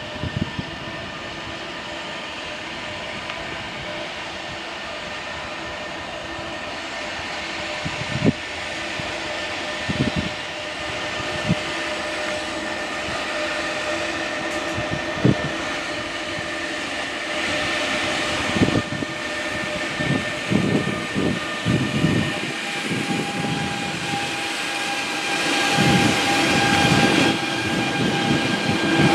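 Two Renfe class 253 electric locomotives running together, drawing near and passing close: a steady electric hum of several tones. Wheels knock over rail joints and points, a knock every few seconds at first, then faster and louder as the locomotives pass, the whole growing louder toward the end.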